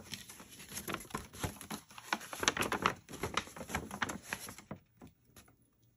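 Paper rustling and crinkling as a folded instruction sheet is handled and opened out, a run of quick irregular crackles that stops near the end.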